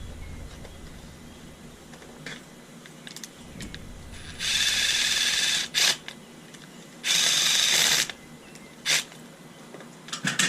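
Two bursts of rapid ratcheting clicks, the first about a second and a half long and the second about a second, with a few single clicks around them.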